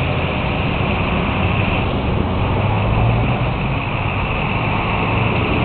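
Car engine running with steady road noise and a low hum, heard from inside a car moving slowly in traffic.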